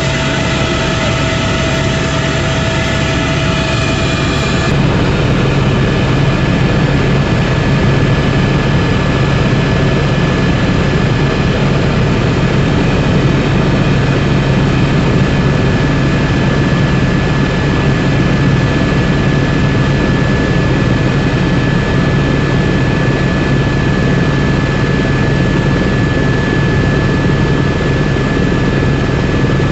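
Helicopter engine and rotor noise heard from inside the cabin in flight: a loud, steady drone with a constant high whine over it. The noise shifts slightly about five seconds in and then holds steady.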